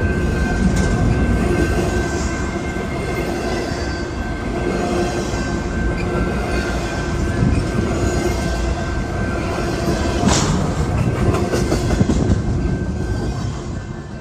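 Cars of a long intermodal freight train rolling past on the rails: steady wheel-on-rail noise with clickety-clack and a thin steady wheel whine. It falls off sharply near the end.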